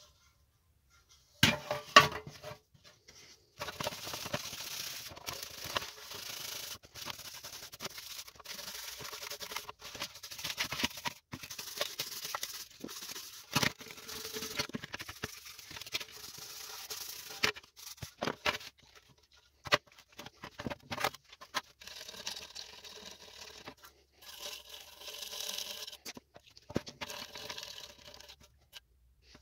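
Scraping and rubbing from hand work, in long stretches of several seconds, with a few sharp knocks, the loudest about two seconds in.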